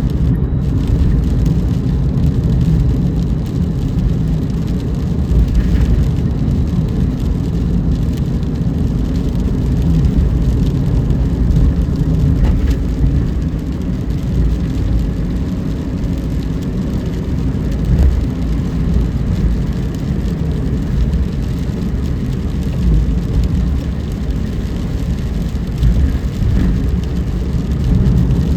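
Steady low rumble of a car driving, with engine and tyre noise.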